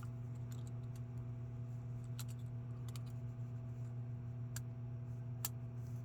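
A few sharp small clicks, spaced a second or so apart, as small parts and a tool are worked at to free a tight pin, over a steady low hum.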